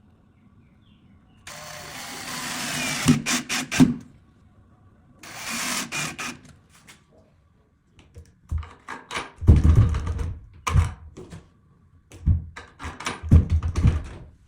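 Hard plastic scraping, clacking and knocking: two scraping stretches with sharp clicks, then a run of irregular clacks and thumps, as of PVC pipe parts being worked by hand.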